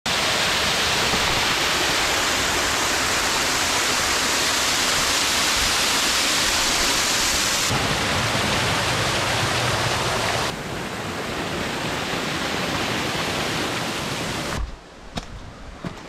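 Steady rushing of a small mountain waterfall, a loud even hiss that changes abruptly in level and tone twice, then drops much quieter near the end with a few scattered clicks.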